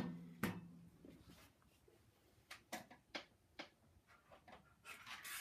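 Handling noise: a knock as a pair of headphones is set down on a desk, a second knock about half a second later, then several light clicks and some soft rustling near the end.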